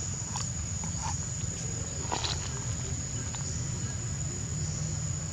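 Insects droning in one steady high-pitched note, over a steady low hum, with a few faint short sounds in the first couple of seconds.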